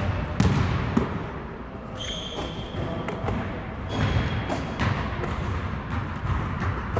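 A basketball thudding off a backboard and rim and bouncing on a hardwood gym floor during rapid repeated layups from a wheelchair, in an irregular run of sharp knocks. There are a couple of short high squeaks, about two and four seconds in.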